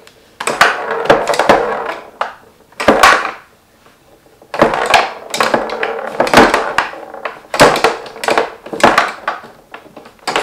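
Tabletop foosball game in play: the ball, the player figures and the rods clacking and knocking against each other and the wooden table, in quick irregular strikes with a short lull near the middle.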